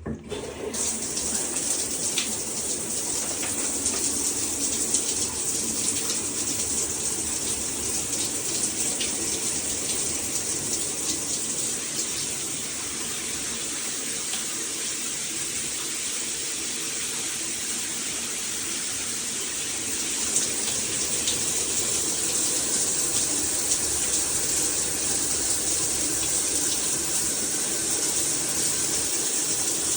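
Water spraying from a Hibbent metal shower head: a steady rushing hiss that comes on suddenly.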